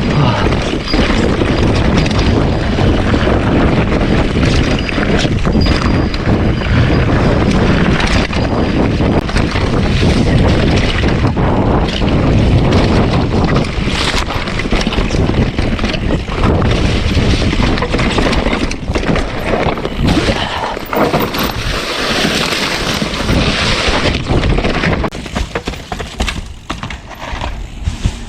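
Loud wind buffeting the microphone, with scattered knocks and rustles, easing off near the end.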